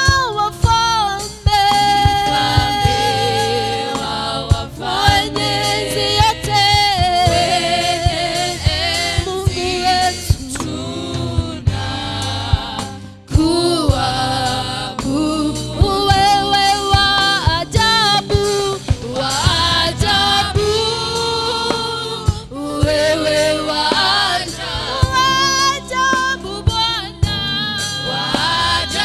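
A woman singing a Swahili gospel worship song, with backing singers and instrumental accompaniment. The lines heard are 'Mfalme wa wafalme, mwenye enzi' (King of kings, Almighty) and 'Wa ajabu, wewe wa ajabu' (Wonderful, you are wonderful).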